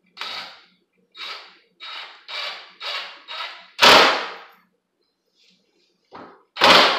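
Cordless impact driver driving a screw into plywood in a series of short trigger bursts, about six brief ones, then the loudest about four seconds in and another strong one near the end as the screw is driven home.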